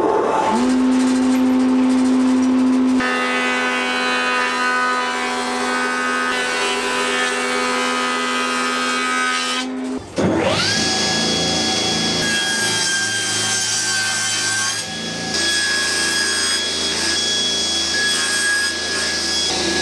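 A thickness planer switched on and running with a steady hum, its sound thickening about three seconds in; it cuts off abruptly just before ten seconds. Then a table saw spins up with a rising whine and runs while wood is crosscut on a sled.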